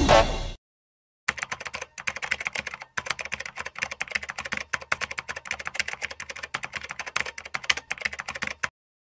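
Rapid keyboard-typing clicks, many a second, with two brief breaks early on, starting just after a whistled music tune cuts off in the first half second.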